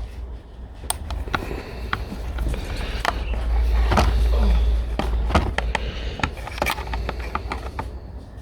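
Irregular clicks and taps of a small screwdriver working at screws and metal parts of a dismantled autoclave, with a low rumble of handling noise that swells around the middle.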